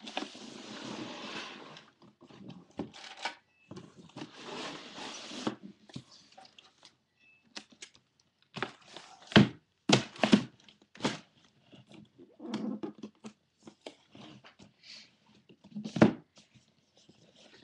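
Cardboard Air Jordan 11 shoebox being handled on a wooden table: rustling at the start and again about four seconds in, then several sharp knocks and thumps, the loudest about sixteen seconds in.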